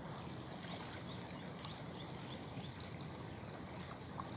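Insects trilling steadily on one high pitch, unbroken throughout, over a low steady rush.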